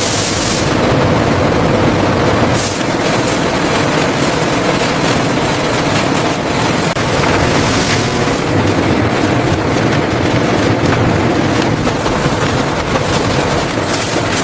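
Factory machinery running with a continuous dense clatter and rattle.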